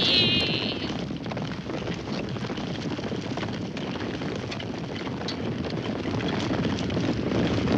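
A troop of horses galloping together: a dense, steady rumble of many hoofbeats that eases a little midway and swells again near the end.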